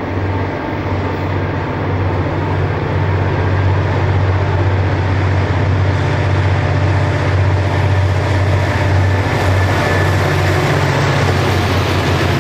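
A lashup of several Clyde-built EMD diesel-electric locomotives hauling a container freight train: their engines make a steady low drone that grows louder as the train approaches and passes. Wagon wheel noise joins in near the end.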